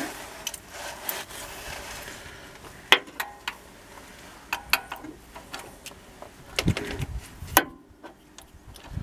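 Scattered metallic clinks and knocks with some rubbing, from a socket ratchet and 15 mm socket being worked onto the air-conditioning belt tensioner; the sharpest knock comes about three seconds in, with a cluster of knocks near the end.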